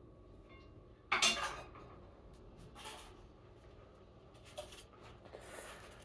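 Kitchen handling noise: a short sharp rustle-and-clatter about a second in, a softer one near three seconds, then a few faint knocks, as food and containers are handled.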